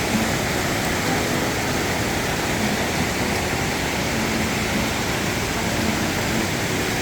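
Steady rush of a waterfall: an even wash of falling water with no break or change.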